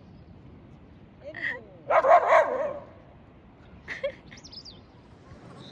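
A dog barking: a short bark just over a second in, a louder run of barks around two seconds in, and a faint one about four seconds in.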